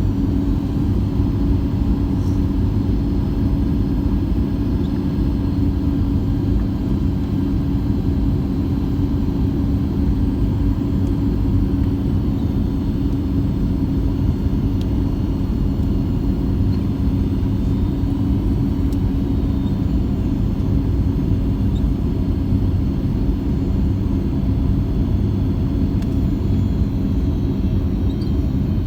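Steady low rumble of a Boeing 737 MAX heard from inside the passenger cabin, with a constant hum over the noise and no sudden changes.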